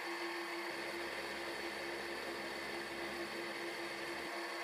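Vertical milling machine running, its end mill cutting an aluminium block: a steady, fairly quiet mechanical hum.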